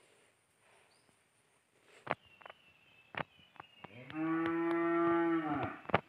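A cow mooing once: one long, low call of under two seconds that rises in pitch at the start and drops away at the end. A few sharp clicks come before it.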